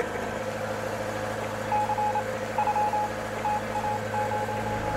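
A boat engine runs with a steady drone. About two seconds in, a single beeping tone starts, keying on and off in short and long beeps like Morse code coming over the boat's radio, a distress signal.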